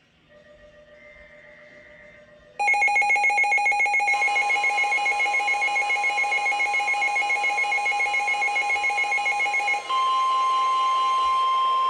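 Weather radio alert: after faint tones, a loud rapidly pulsing alarm starts about two and a half seconds in. Near the end it gives way to a steady single-pitched tone, the NOAA Weather Radio warning alert tone that signals a warning message is about to be read.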